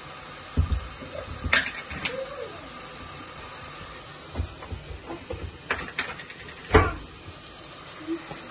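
Chopped onions frying in oil in an aluminium saucepan, a steady low sizzle, broken by several sharp knocks and clatters, the loudest a thump a little before the end.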